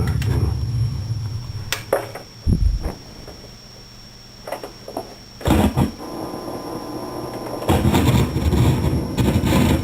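Electrical hum and buzz from studio speakers fed by a Focusrite Scarlett 2i2 audio interface, with sharp crackles and pops. The hum is loud at first, drops after a few seconds, and comes back louder near the end. This is unwanted background noise in the audio chain, which the owner suspects comes from the connecting leads.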